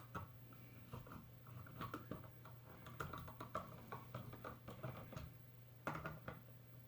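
Faint, irregular small clicks and scrapes of a screwdriver driving a drywall screw through an outlet's mounting strap into the electrical box.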